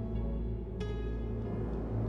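Instrumental background music: a steady low drone with a new note struck just under a second in.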